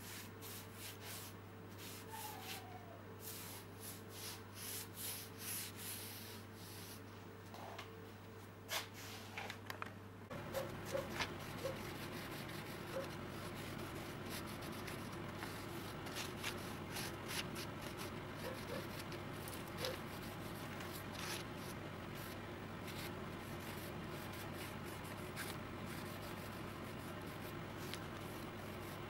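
Gloved hand rubbing oil into oak wood: soft, repeated wiping strokes with small clicks over a steady low hum. The background changes abruptly about a third of the way in.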